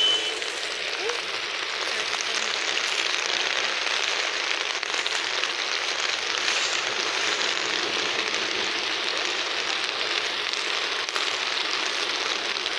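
Heavy rain falling steadily: a dense, even hiss of drops hitting surfaces.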